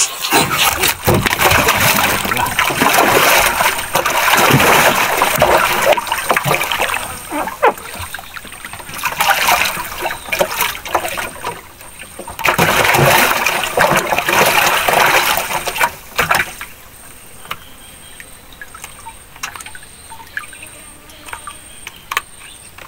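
Water splashing and sloshing at the side of a small wooden boat, in loud bursts for about the first sixteen seconds, then dropping to faint trickles and drips.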